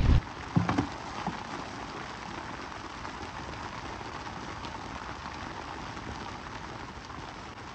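Steady patter of rain on the tent fabric, with a few sharp knocks about a second in.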